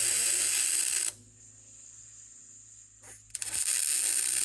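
Weld gun arc crackling in two short tack welds on an aluminum exhaust extension pipe, the first stopping about a second in and the second starting about three seconds in.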